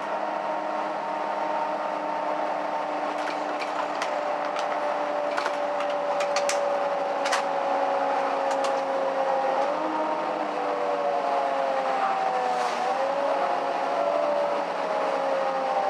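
Mercedes-Benz O530 Citaro city bus heard from inside the passenger cabin while driving. Its engine and drivetrain drone steadily, with a whine that slides down and shifts pitch several times in the second half, and a few sharp clicks or rattles near the middle.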